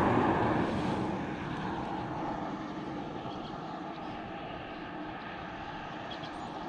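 A passing car, loudest at the start and fading away over the first two seconds, leaving a steady background noise.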